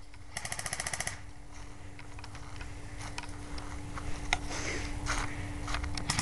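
Airsoft electric gun firing a short full-auto burst about half a second in, a fast even rattle of shots, followed by scattered single clicks and snaps.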